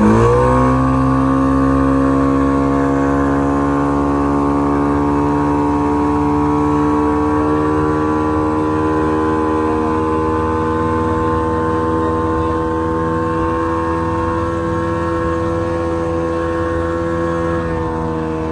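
A 2002 Johnson 50 hp two-stroke outboard motor running under way at steady speed, its note holding level after a brief rise at the start and dipping slightly near the end.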